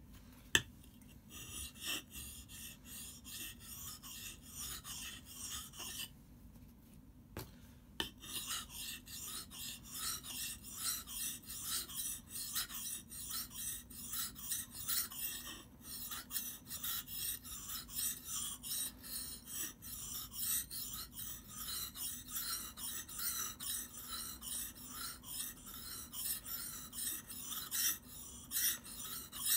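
Steel hatchet blade being stroked back and forth on a wet whetstone: repeated rasping strokes of steel on stone. A single knock just after the start, and a short break about six seconds in before the strokes resume steadily.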